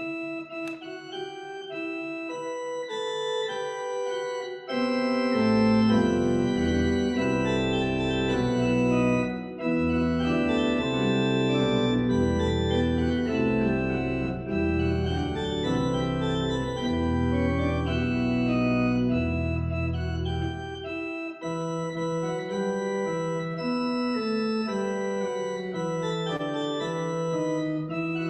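Pipe organ playing a piece of sustained, chord-based music. Deep pedal bass notes come in about five seconds in and drop out about three quarters of the way through, leaving the higher manual voices alone.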